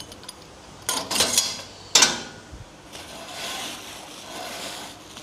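A new bubble wrap roll and its holder being handled and fitted on a packing station: a short clatter about a second in, a sharp knock at about two seconds, then soft rustling.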